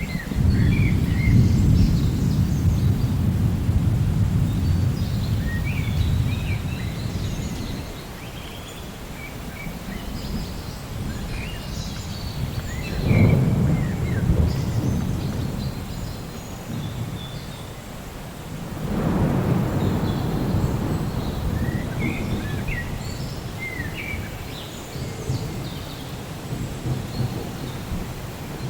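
Rolling thunder over steady rain. Three deep rumbles: a long one from the start, a sharper peal about halfway through, and another about two-thirds in that slowly fades. Short high bird chirps come and go above the rain.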